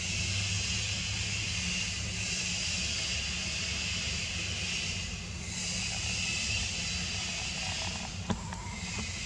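Steady forest ambience: a high insect drone over a low rumble, with one sharp click late on.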